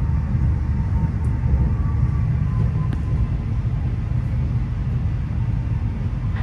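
Passenger train running at speed, a steady low rumble of wheels on rail heard from inside a stainless-steel economy carriage near the vestibule door, with a single faint click about three seconds in.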